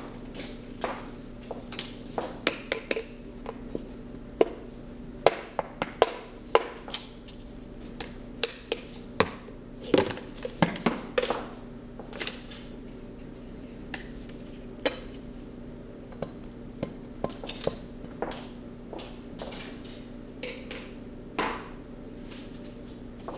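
Irregular sharp clicks, taps and knocks of small hard objects being handled, thickest around the middle, over a steady low electrical hum.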